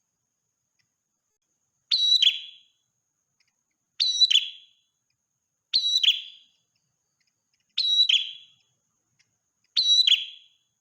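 Prenjak merah call repeated five times, about every two seconds: each a sharp, high piercing note followed by a short falling, fading trill.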